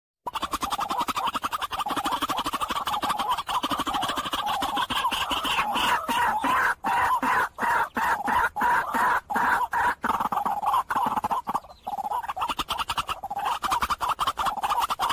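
White-breasted waterhen (dahuk) calling: a rapid, continuous run of harsh clucking notes.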